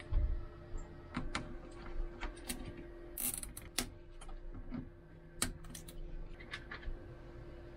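Scattered sharp clicks and light rattles of a hand tool and wiring being worked, over a faint steady hum.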